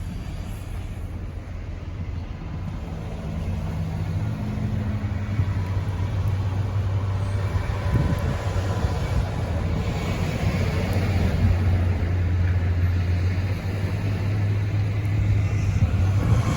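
A motor vehicle's engine running with a steady low hum, gradually getting louder.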